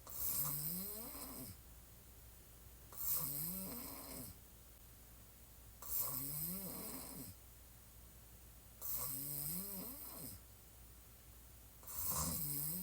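A woman snoring heavily with her mouth open as she lies on her back. There is one snore about every three seconds, five in all, and each rises in pitch as it goes.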